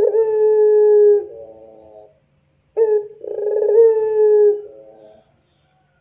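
Puter pelung dove, a long-voiced breed of domestic Barbary dove, giving two long drawn-out coos. The first is already sounding and the second starts a little under three seconds in. Each opens with a short rolling burble, then holds one steady note that sinks slightly and trails away.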